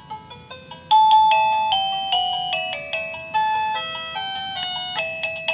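Wireless doorbell receiver playing one of its built-in electronic ringtones: a simple melody of plain beeping notes. One phrase dies away and a new, louder phrase starts about a second in.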